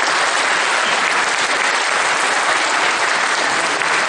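Congregation applauding: steady, sustained clapping.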